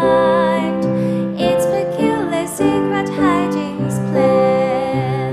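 A girl singing a slow song solo, holding long notes over a sustained keyboard accompaniment whose chords change every second or so.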